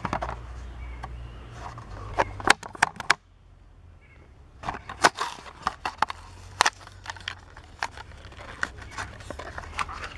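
Clear plastic blister pack of a Matchbox toy car crackling and clicking as it is pried and torn off its cardboard backing card, in a run of short sharp snaps that stops briefly about three seconds in.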